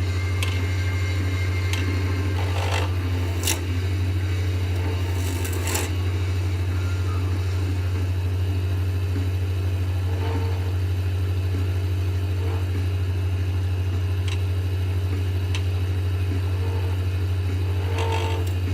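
Small wood lathe running with a steady low hum while a turning tool scrapes the spinning acrylic pen blank, with scattered short scrapes and clicks.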